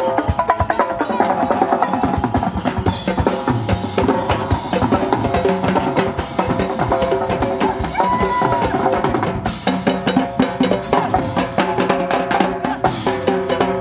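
Live percussion ensemble playing a fast, busy rhythm together: a metal goblet drum (darbuka) struck by hand alongside a drum beaten with sticks, with dense strikes and no pause.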